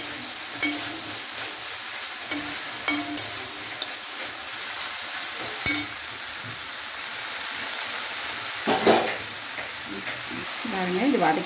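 Soya chunks with tomato and onion sizzling in hot oil in a metal kadai while a perforated steel ladle stirs them, scraping and clicking against the pan.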